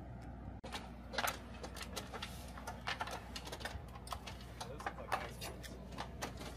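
Irregular clicks and light knocks from a pilot climbing a metal boarding ladder and settling into a fighter jet's cockpit, over a steady low hum. The clicking starts about half a second in.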